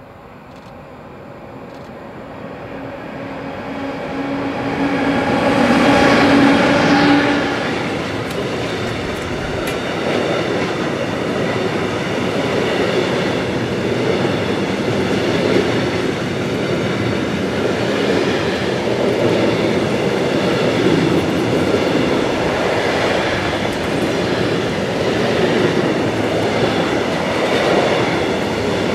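Siemens Vectron class 193 electric locomotive approaching and passing, with a set of steady tones that swell to their loudest about six seconds in and drop in pitch as it goes by. A long intermodal freight train of truck-trailer wagons follows, rumbling steadily past on the rails.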